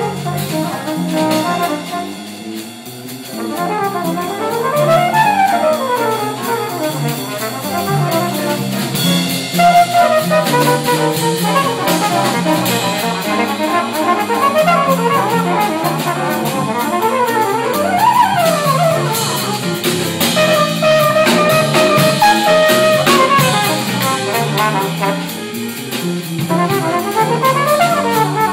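Live jazz combo with a trumpet solo: quick rising and falling runs over an electric bass line and a drum kit, the cymbals getting busier about nine seconds in.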